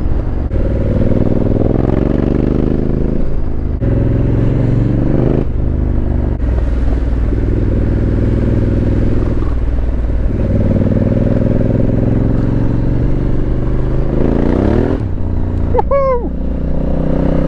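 Honda CRF1100L Africa Twin's parallel-twin engine on the move, the pitch climbing as it pulls and then dropping sharply at each gear change, several times over.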